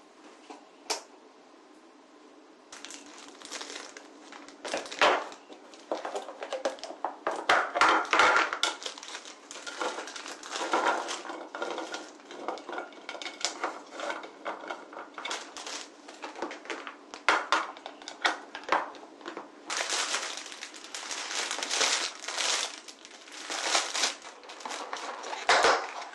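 Things being handled at close range: irregular rustling and crinkling, with clicks and light clatters like dishes or packaging being moved.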